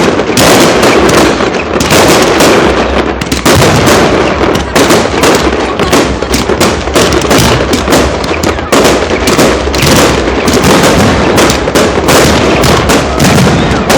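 Fireworks display: a loud, rapid, near-continuous barrage of bursts and crackling reports, several a second with no pause.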